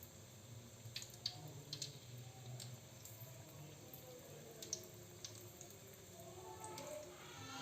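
Faint wet squishing and dripping with a few scattered light clicks: tempe being worked in wheat-flour batter.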